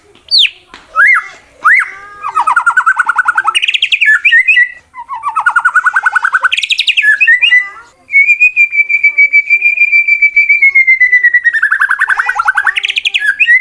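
Male white-rumped shama singing a fast, aggressive challenge song. It opens with sharp sweeping whistles, then gives two bursts of rapid trills, then one long rattling trill held on one pitch for about four seconds that drops into a falling trill near the end.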